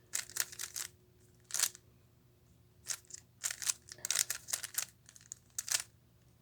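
3x3 Rubik's Cube being turned by hand: quick runs of sharp plastic clicks and clacks as the layers are twisted, with short pauses between groups of moves. The cube is being put through the corner-positioning algorithm a second time.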